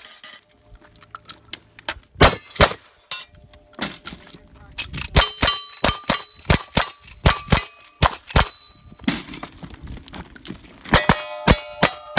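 Gunfire at a cowboy action shooting stage with steel targets ringing. A shotgun fires twice about two seconds in, then a lever-action rifle fires a quick string of about a dozen shots, each with the clang of steel plates. Near the end a revolver fires at steel targets that ring on after the shots.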